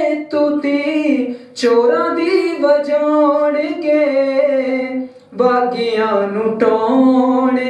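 A solo singer singing a Punjabi song into a microphone with no accompaniment, in long held notes, pausing for breath about a second and a half in and again near five seconds.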